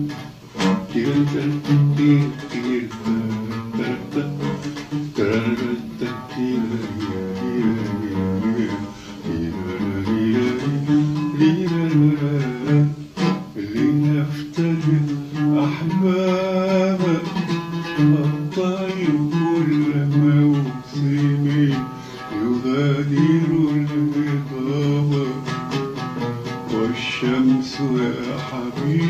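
A man singing a slow Arabic melody, his voice gliding between notes, over plucked oud notes that he plays himself. This is a composer's rehearsal of a new song.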